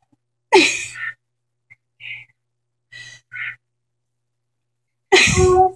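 A frightened woman's gasps and cries in short bursts with dead silence between, the silence typical of a video call's audio cutting out; the loudest is a held, pitched cry near the end.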